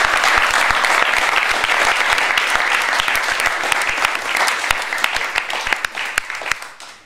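A roomful of people applauding: dense, steady clapping that thins to a few scattered claps and dies away near the end.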